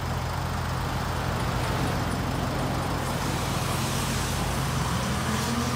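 Flatbed car-carrier truck's engine idling steadily, rising in pitch near the end as the truck begins to pull away.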